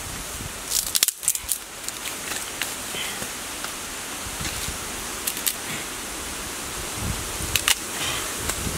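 Dry sticks and bamboo leaves rustling and clicking as they are laid onto a small wood fire, with a handful of sharp clicks over a steady hiss.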